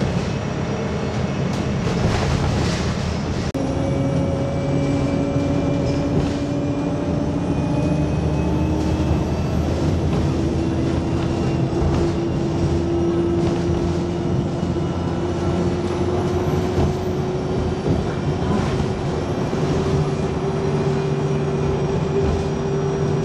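Bus interior noise while travelling at speed: engine and tyre rumble with a drivetrain whine that climbs slowly in pitch as the bus gathers speed, and a faint high-pitched squeal above it.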